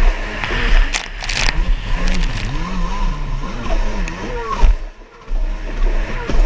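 Stand-up jet ski engine racing at full throttle, its pitch swinging up and down as the hull leaves and meets the water and the rider works the throttle, over the rush of spray and chop. Sharp splashes hit about a second in, and the engine drops away briefly about five seconds in before coming back on.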